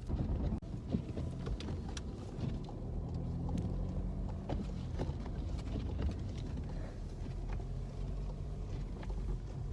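Car interior noise while driving on a snowy road: a steady low engine and tyre rumble with scattered light clicks and knocks.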